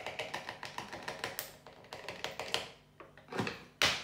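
A quick, irregular run of light plastic clicks and crackles from a plastic funnel and bottle being handled. It ends with a louder scrape and knock near the end as the funnel is lifted and moved to another bottle.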